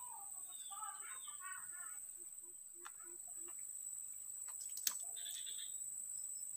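Outdoor birdsong, a run of chirps in the first two seconds, over a steady high-pitched insect drone, with a few soft clicks and one sharp click about five seconds in.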